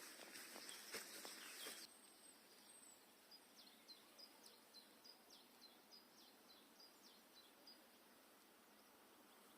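A small bird calling faintly: a run of short, falling chirps, about two a second, over a quiet outdoor background. It is preceded by a burst of hiss with clicks that cuts off abruptly about two seconds in.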